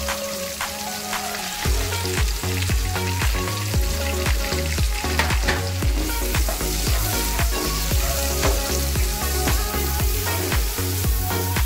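Chopped garlic and ginger sizzling in hot oil in a frying pan. Background music with a steady beat comes in about two seconds in and runs under the sizzling.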